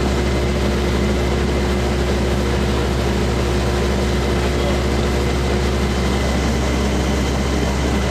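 Heavy engine running steadily at a constant speed, a low, unchanging drone.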